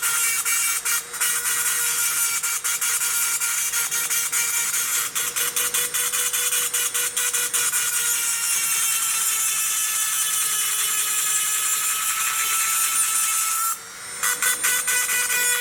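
Angle grinder grinding metal: a high, steady whine from the disc with a rapid, irregular crackle where it bites the work. The sound drops briefly near the end, then picks up again.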